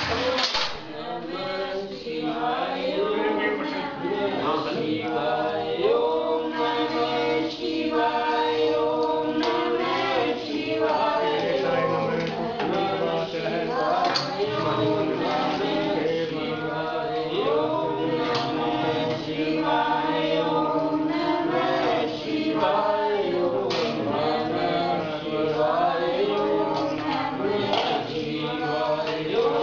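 A group of voices singing a Hindu devotional chant in unison, going on steadily.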